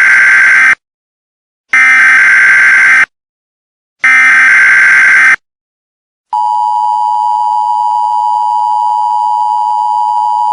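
Emergency Alert System header: three loud, screeching bursts of digital data tones, each just over a second long, then after a short gap the steady EAS attention signal, two clashing tones sounding together, starting about six seconds in. This sequence signals that an emergency broadcast message follows.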